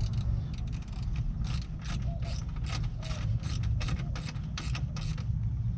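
Hand ratchet clicking, about three clicks a second, as a fastener on the headlight housing is turned. The clicking stops shortly before the end.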